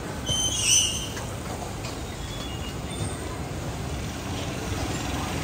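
A short high-pitched squeal about half a second in, over a steady low rumble of street noise.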